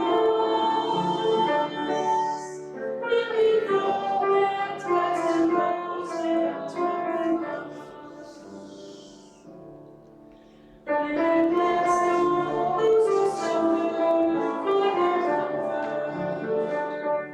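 Hymn sung by voices with accompaniment. One verse dies away about eight seconds in, and after a short break the next verse starts near the eleven-second mark.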